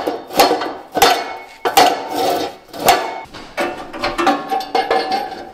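Metal pipe clanking against metal: a quick, irregular series of sharp knocks, each leaving a short ringing tone.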